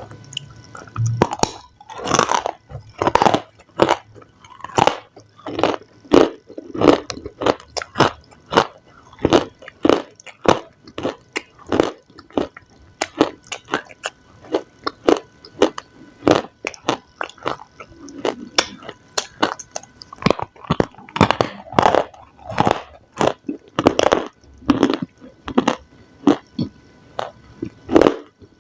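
A person eating crunchy food close to the microphone: repeated sharp crunching bites and chews, about one to two crunches a second.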